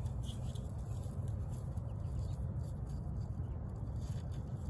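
Steady low rumble of wind on the microphone, with faint rustling and ticking from string being knotted onto a plastic crate.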